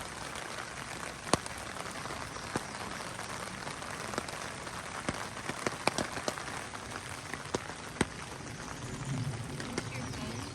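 Steady rain falling, an even hiss with scattered louder drops ticking on a hard surface now and then.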